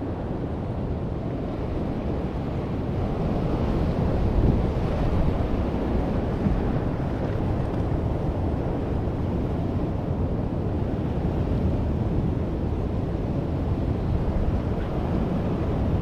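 Ocean surf washing over and against a low rock platform, with wind rumbling on the microphone; the wash swells a little about four seconds in.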